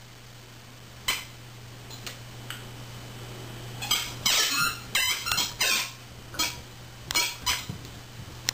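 A puppy chewing a squeaky toy bear, giving a few short squeaks at first and then a quick run of squeaks from about four seconds in.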